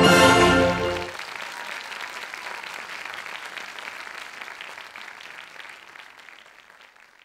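Orchestral music ends on a final chord about a second in, then an audience applauds, the clapping fading away near the end.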